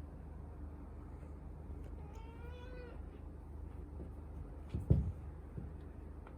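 British Shorthair kitten giving a single short meow, just over two seconds in. About five seconds in there is one low thump, the loudest sound here.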